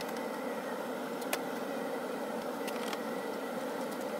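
A steady mechanical hum with a thin steady whine, and a few faint clicks, the sharpest about a second in and a small cluster near the end.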